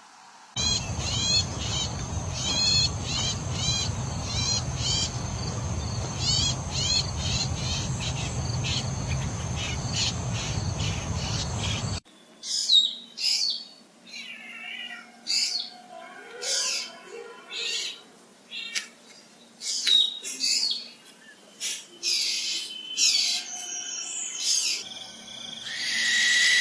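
Birds calling. First a rapid series of repeated high chirps over a steady background hiss and rumble, which cuts off suddenly about halfway. After that, separate varied calls, each a sharp sweep in pitch.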